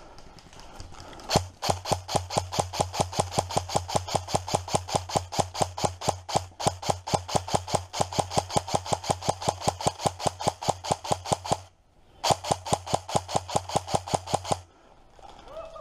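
Airsoft electric gun firing a long full-auto burst: sharp shots in a fast, even rhythm over a low motor hum. It stops briefly, then fires a second, shorter burst that ends about a second before the end.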